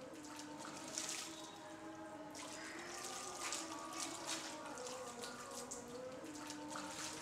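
Water splashing and trickling as it is scooped and poured by hand at an ablution tank, in irregular splashes. Soft sustained music tones run underneath.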